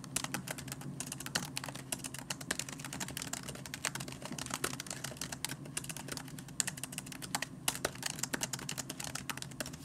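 Fingers typing fast on a laptop keyboard: a dense, irregular patter of key clicks with a few brief pauses, over a faint steady low hum.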